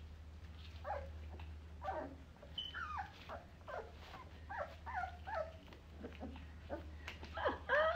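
Young puppy whining: a string of short, high squeals that bend down in pitch, coming more often and louder near the end.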